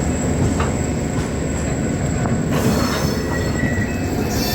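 Freight train wagons rolling past: a steady rumble with wheels clicking over the rail joints, and a high-pitched wheel squeal setting in about halfway through.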